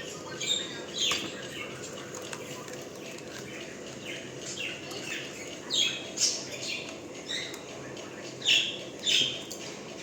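Pet parrot chirping: short, falling chirps spaced out irregularly, with two louder pairs of chirps in the second half.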